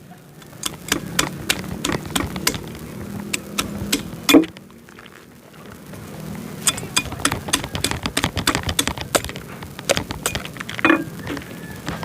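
Irregular clicks and knocks of kitchen utensils and dishes being handled, with one louder knock about four seconds in.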